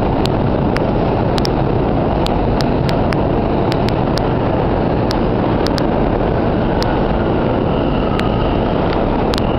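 Vintage R1–R9 subway train running out into the tunnel, a loud steady rumble with sharp irregular clicks about twice a second and a faint high squeal near the end.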